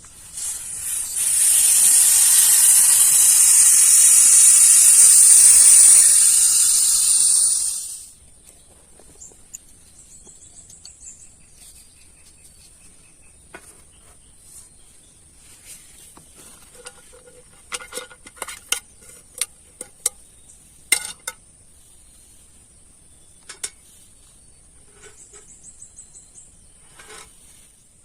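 A loud steady hiss lasting about seven seconds that cuts off suddenly, followed by scattered light clicks and knocks over a steady thin high-pitched whine.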